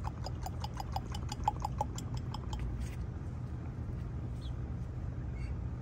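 Backyard fowl giving a quick run of short calls, about five a second, for the first couple of seconds before fading out, over a steady low hum.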